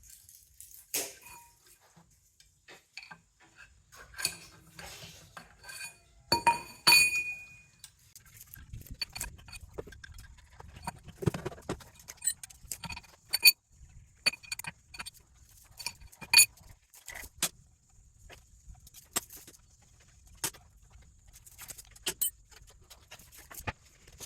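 Metal clinks and taps from hand tools and parts being worked while dismantling a water pump and its electric motor: irregular sharp metallic clinks, some ringing briefly. The loudest cluster comes about six to seven seconds in.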